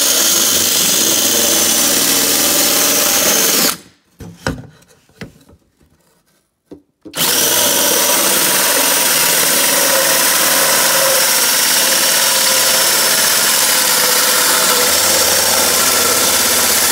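Cordless DeWalt drill spinning a hole saw through a fiberglass dashboard panel: a loud, steady cutting whir with a faint high whine. It stops for about three seconds a few seconds in, with a few light knocks in the pause, then runs steadily again.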